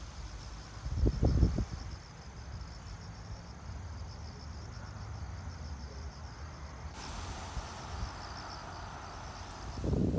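Crickets chirping in a steady pulsing trill. It drops out for a few seconds in the middle and comes back, over a low background rumble. A brief louder low rumble about a second in.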